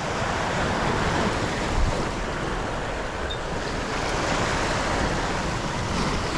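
Sea waves surging and washing over a rocky shore, a steady rushing that swells and eases, with wind on the microphone.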